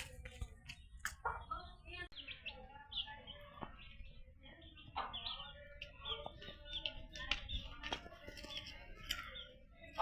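Small birds chirping busily, with scattered sharp clicks among the calls.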